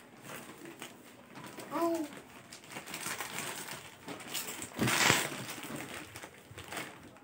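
Clear plastic packaging crinkling and rustling as packets of clothing are handled and opened, with the loudest rustle about five seconds in.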